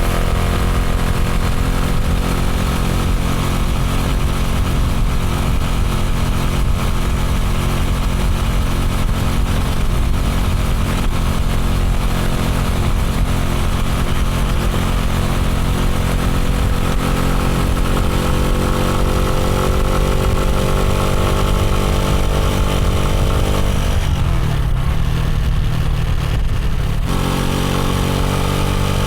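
Motorcycle engine running steadily, its pitch climbing gradually through the second half as it picks up speed; for a few seconds near the end the higher part of the sound drops away, then the climb resumes.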